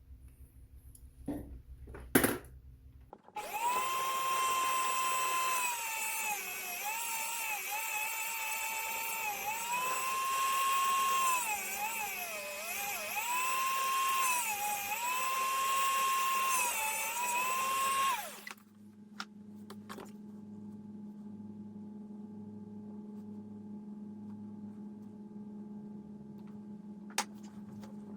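Small high-speed electric power tool running with a high whine, its pitch dipping again and again as it bites into the material, shaping the plastic strain-relief bushing of a replacement power cord. It is preceded by a couple of sharp clicks and stops about 18 seconds in, leaving a faint low hum.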